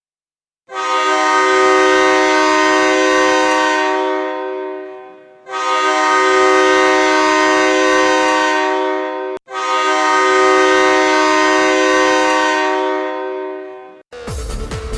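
Hockey goal horn sounding three long blasts of about four seconds each, a chord of several steady tones; the first fades out, the next two cut off sharply. Electronic dance music with a heavy beat starts about a second before the end.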